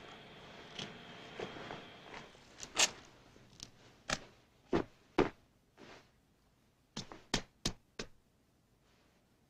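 A series of about a dozen sharp knocks and thuds, unevenly spaced, with the loudest around three and five seconds in, before it goes quiet near the end. Foley props are being struck in time to an action scene. A faint steady hum fades out about two seconds in.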